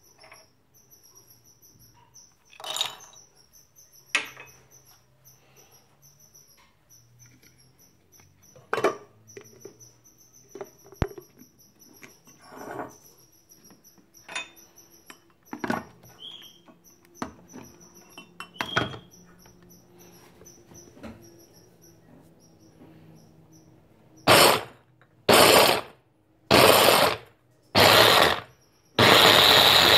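Scattered clicks and knocks of a glass chopper bowl and its lid being handled. Near the end an electric food chopper pulses four times in short bursts about a second apart, then runs steadily, grinding mixed nuts and roasted chickpeas into a fine meal.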